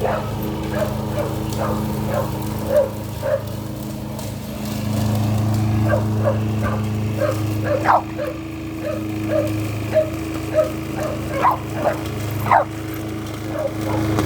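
A dog barking and yipping in quick, repeated short barks, about two a second with a few louder ones, over the steady hum of a lawnmower engine.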